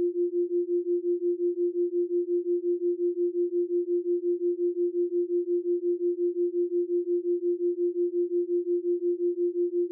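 A pure sine tone of about 350 Hz, pulsing evenly about five times a second. It is a synthesized brainwave-entrainment tone of the kind sold as theta isochronic tones or binaural beats.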